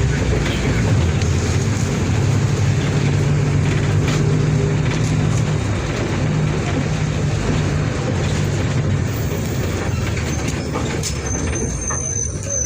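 Diesel engine of a Mercedes-Benz OF 1722M bus running with a steady drone over a bed of mechanical noise. A thin high-pitched squeal comes in near the end.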